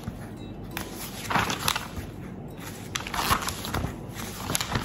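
Glossy wall-calendar pages being flipped over by hand, rustling and crinkling in a few short bursts.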